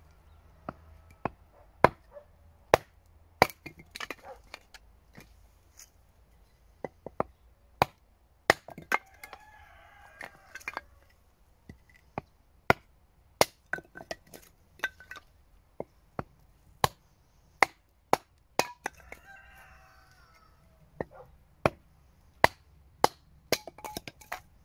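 Hand-forged stainless steel hatchet splitting seasoned, dry beech into kindling on a wooden stump: a long run of sharp chops and cracks, about one a second or faster. A rooster crows twice in the background, about 9 and 19 seconds in.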